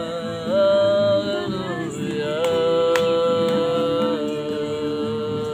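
A woman singing a worship song in long held notes, stepping from one sustained pitch to the next, with an acoustic guitar accompanying underneath.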